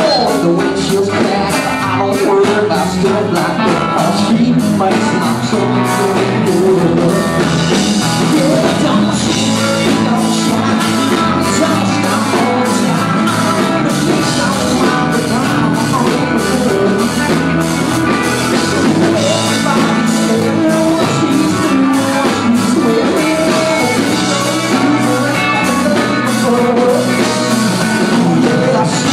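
Live country-rock band playing loud and steady: a regular drum beat under electric guitar, with singing at times.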